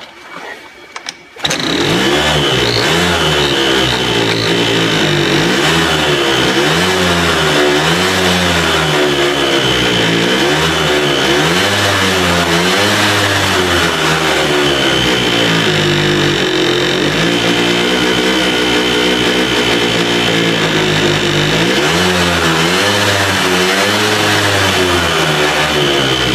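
Freshly rebuilt Kymco MXU-50 quad's small single-cylinder engine starts about a second and a half in after a few clicks, then runs unevenly, its revs wavering up and down, with a steady high whine above. It is running lean, and runs better with the air filter covered, which the owner takes to mean it isn't getting enough fuel.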